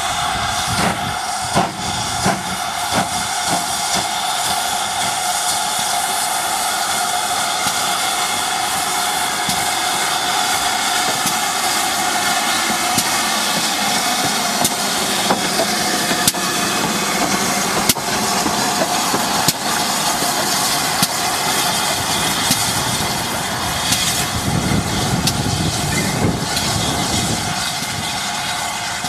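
GWR 4300 2-6-0 Mogul steam locomotive No. 5322 passing slowly, with a loud, steady hiss of escaping steam and a few low thumps near the start.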